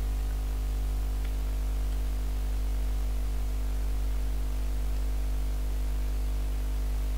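Steady electrical hum with a stack of steady tones over an even hiss: the recording's noise floor of mains hum and static, unchanging throughout.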